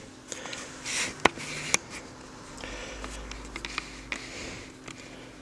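Light handling noise as a large magneto-optical disc is held and turned by its rim: a few small sharp clicks and soft rustles, over a faint steady hum.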